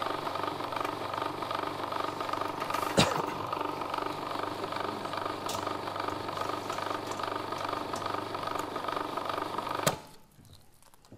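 Food processor motor running steadily, churning pumpkin kibbeh dough, then switched off with a click about ten seconds in. There is another sharp click about three seconds in.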